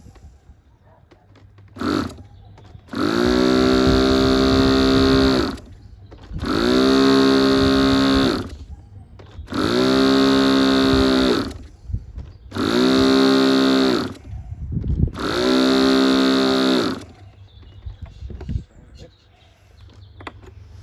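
Electric starter spinning a model aircraft glow engine in five bursts of two to three seconds each, after one short blip; each burst rises in pitch as it spins up, then holds steady. The engine does not catch.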